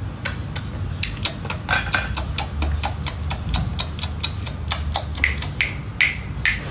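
A rapid, irregular series of sharp clicks or taps, about four a second, over a steady low rumble.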